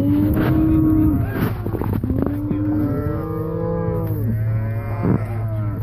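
Several cattle mooing, long drawn-out calls overlapping one another, over a steady low hum.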